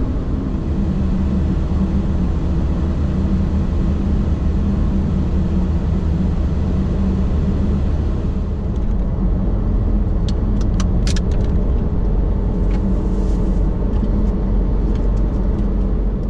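Toyota Tacoma pickup driving at highway speed, heard from inside the cab: a steady rumble of engine and tyre noise, with a few short clicks about ten seconds in.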